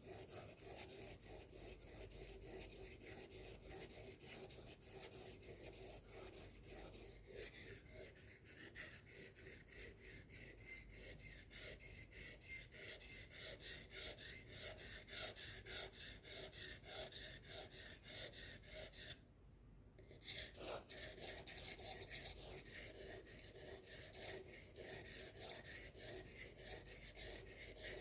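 Knife blade being sharpened: steel rasping against a sharpener in quick, even back-and-forth strokes, with a brief pause about two-thirds of the way through.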